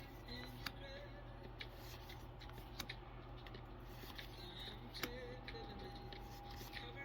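Pokémon trading cards handled and flipped through by hand: faint rustling with scattered light clicks of card edges.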